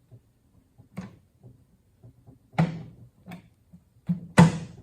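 A handful of separate knocks and clunks of metal transmission parts being set and tapped into place on an NV4500 case during reassembly. The strongest comes about two and a half seconds in and another near the end, with lighter taps between.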